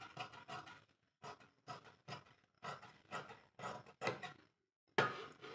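Large tailor's shears cutting cloth in a run of short snips, about two a second, with a brief pause a little after four seconds in.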